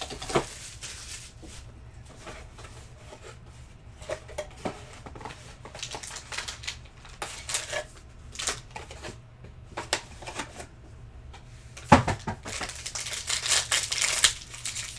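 Packaging of a Panini Contenders Optic basketball card box being torn open by hand: scattered crinkles and clicks of plastic and cardboard, then near the end a sharp snap and denser crinkling as a foil card pack is ripped open.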